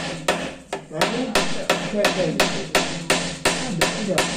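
Hammer driving nails into wood with quick, steady blows, about three a second. The blows pause briefly near the start, and the nail rings between strikes.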